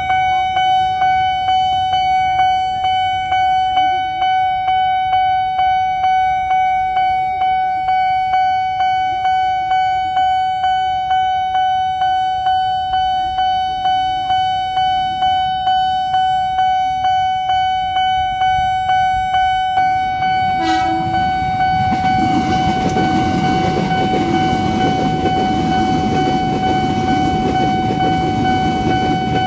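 Level-crossing warning alarm at a Nippon Signal barrier crossing, ringing at a fast tempo: a steady high electronic tone pulsing rapidly and evenly. About two-thirds of the way through, an electric commuter train begins rushing past underneath the alarm.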